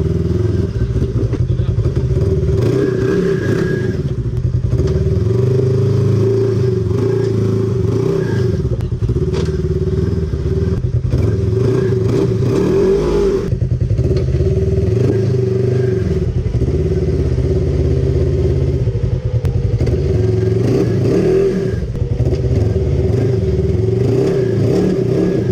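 Off-road vehicle engine running under changing throttle, its pitch rising and falling again and again.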